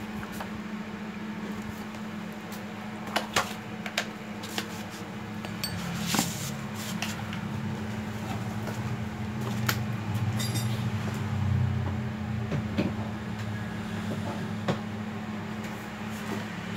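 Scattered clicks, clunks and knocks of tools being handled and set down off to one side, over a steady low hum.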